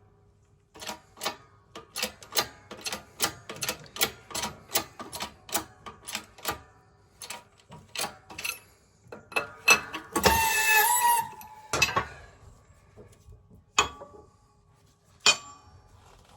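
Shop press forcing a polyurethane bush into a Mk2 Golf GTI bottom arm: a run of sharp clicks, about two to three a second, then about ten seconds in a loud second-long squeal as the bush is pushed home, followed by a few single clicks.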